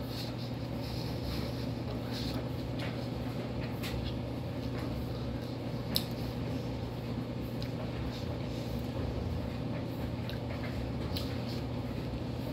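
Steady low room hum with faint, scattered mouth clicks and crunches from a man chewing raw onion. A sharper click comes about six seconds in.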